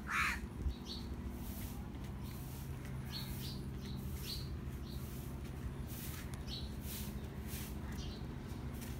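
Small birds chirping, short high chirps every second or so, over a steady low mechanical hum.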